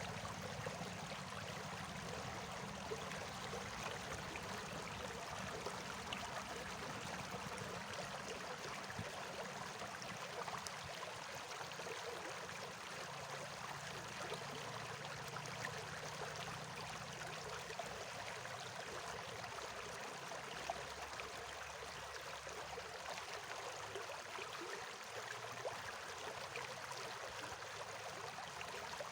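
Water flowing steadily, a continuous rushing with small trickling splashes, like a stream.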